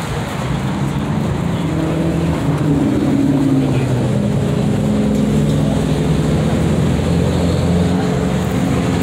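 Car engine running steadily, its pitch lifting slightly and settling back about three seconds in.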